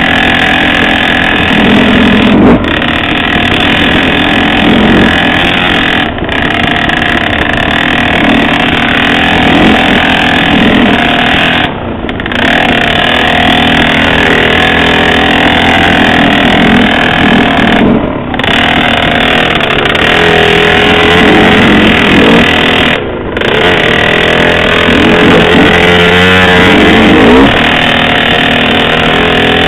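Dirt bike engine running continuously under throttle on a trail ride, with short dips in loudness every four to six seconds.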